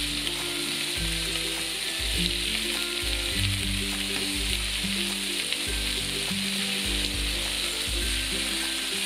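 Whole mackerel sizzling steadily in a hot nonstick grill pan. Background music with a low bass line plays underneath.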